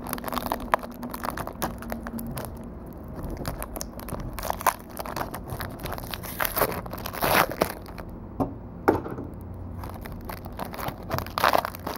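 Plastic pack wrapper and cardboard being crinkled and torn open by hand, with irregular rustling and crackling and a few louder bursts of handling.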